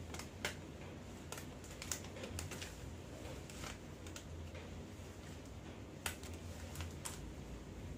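Faint, scattered crinkles and snaps of a sterile surgical glove being pulled over a gown cuff and worked onto the hand: a handful of short sharp clicks spread unevenly over several seconds, above a low steady hum.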